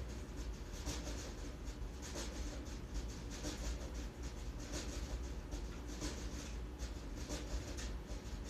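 Faint, irregular scratchy rustling over a steady low hum.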